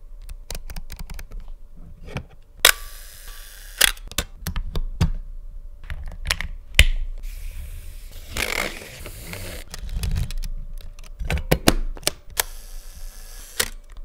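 Close-miked mechanical clicks, snaps and rattles from an all-metal Asahi Pentax 35 mm film SLR as its controls are worked by hand. The clicks come irregularly, with a few loud sharp ones, and there is a longer rattling, scraping stretch about eight to ten seconds in.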